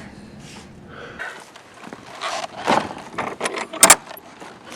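Shed door being worked: scattered knocks and rattles, then a single sharp latch click nearly four seconds in, the loudest sound.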